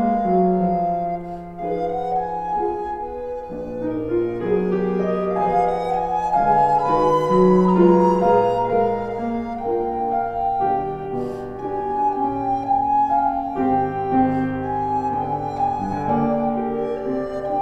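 Recorder and piano playing a classical duet: a recorder melody in held notes over piano accompaniment.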